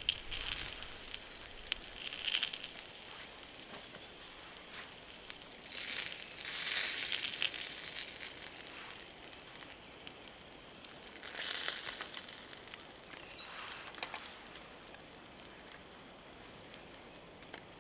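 Small wood-burning camp stove crackling with frequent light ticks, with a couple of louder swells of rustling noise.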